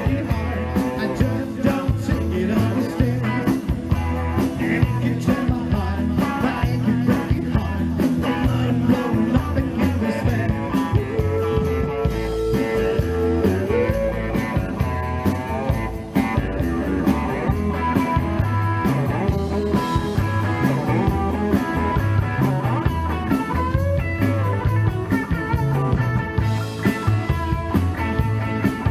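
Live rock band playing through a PA: electric guitar over a steady bass and drum beat.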